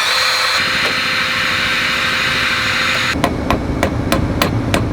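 Power drill running steadily while boring into a broken exhaust header stud. About three seconds in, it gives way to sharp metal-on-metal hammer taps, about three a second, as if driving the extractor into the hole.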